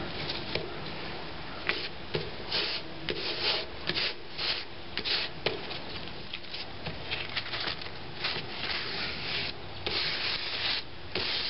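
Fingers rubbing and pressing a lump of marshmallow-bound sparkler composition against a paper plate: irregular short dry scraping strokes, with a longer continuous rub near the end.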